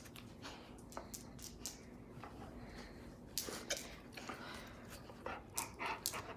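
A dog playing with a toy close by: scattered short clicks and scuffs, with sharper knocks a little past halfway and a quick cluster of them near the end.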